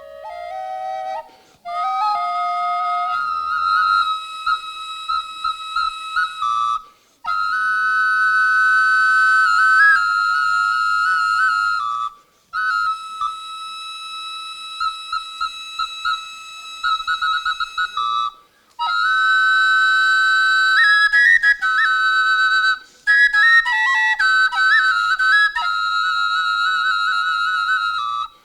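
Bulgarian shepherd's double flute (dvoyanka) played solo: a high, breathy folk melody with ornaments, in phrases of a few seconds broken by short pauses for breath.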